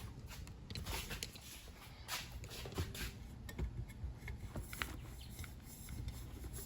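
Intermittent light clicks, taps and rustles of hands fitting intake parts under the hood, a silicone coupler pushed onto the intake pipe.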